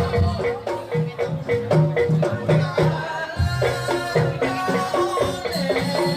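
Live Javanese gamelan music accompanying a jaranan dance: a steady, rhythmic melody of struck bronze metallophones over kendang drum beats.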